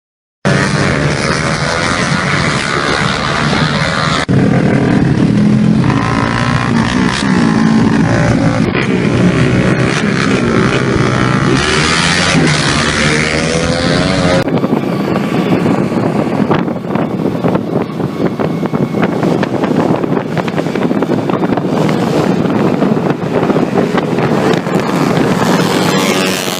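Small motorcycle engines revving hard at street-race speed, their pitch rising and falling. About halfway through, the sound cuts abruptly to a rougher engine noise mixed with wind on the microphone.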